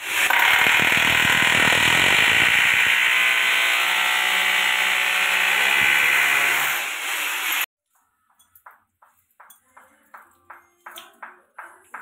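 Corded electric drill boring into the tiled wall beside a PVC water pipe. It runs steadily for about seven and a half seconds, then stops abruptly. After a short pause comes a run of short clicks, about three a second, as a screwdriver turns the screw of the pipe clamp.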